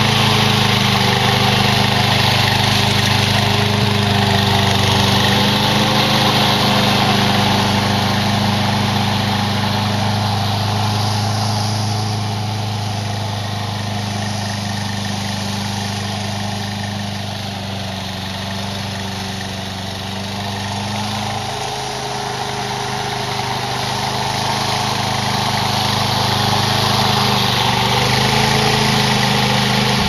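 GOAT32 remote-control slope mower's small air-cooled vertical-shaft engine running. It grows somewhat fainter midway as the mower drives off across the grass, then louder again as it comes back.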